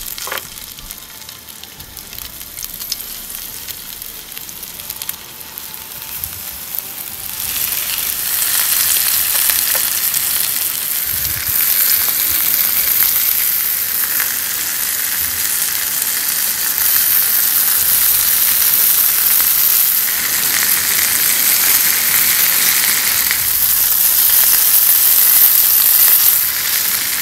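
Hake steaks sizzling in hot oil in a grill pan. The sizzle is quieter at first and grows louder about seven seconds in, then stays steady.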